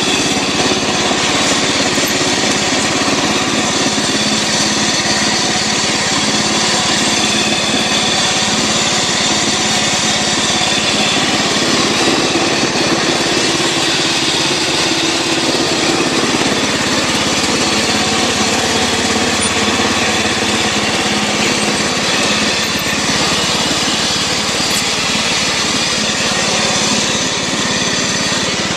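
Riding lawn tractor's small gasoline engine running steadily and evenly, with no unusual noises.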